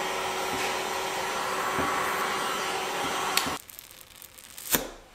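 A handheld hot-air blower runs steadily, warming sticker adhesive on a plastic fender, and cuts off about three and a half seconds in. After that come light rustles and clicks of a sticker being peeled off the plastic, including one sharp click near the end.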